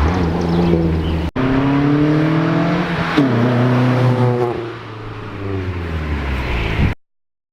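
Scion tC's engine, fitted with an Injen cold air intake, accelerating and revving, its pitch rising and falling. The sound breaks off suddenly twice and stops abruptly near the end.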